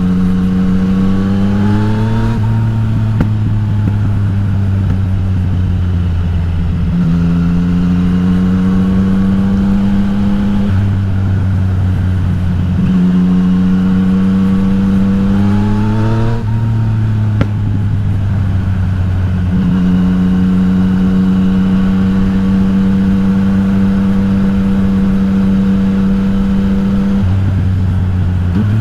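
Yamaha XSR900's three-cylinder engine, through an aftermarket Akrapovič exhaust, pulling hard under acceleration. Its pitch climbs three times with drops between, then holds steady at a cruise for several seconds near the end.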